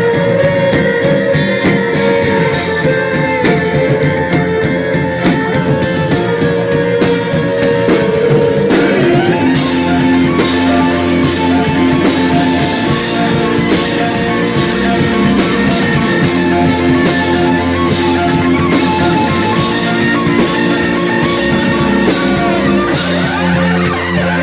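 Live rock band playing an instrumental passage: guitars with drum kit, no singing, the chords shifting about nine seconds in.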